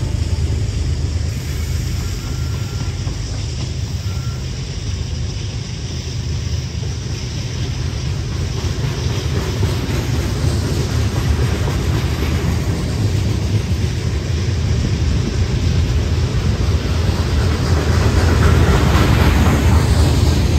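Freight train rolling by with a steady low rumble that grows louder near the end.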